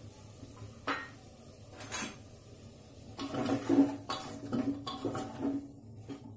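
A spoon stirring vegetables in a metal pressure cooker pot, knocking and scraping against its sides: two single knocks, then from about three seconds in a quicker run of clanks and scrapes.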